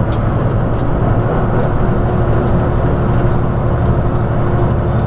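Semi truck driving at road speed, heard from inside the cab: a steady low engine drone mixed with road noise.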